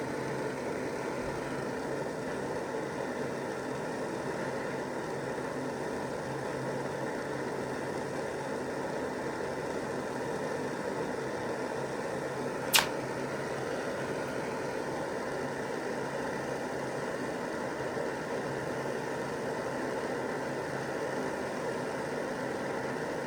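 Butane torch flame burning with a steady roar. One sharp click about thirteen seconds in.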